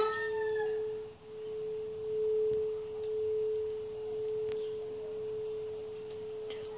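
Tibetan singing bowl ringing on by itself after being set sounding by overtone singing into it: one steady pure tone that swells and fades about once a second. Its higher overtones die away within the first second.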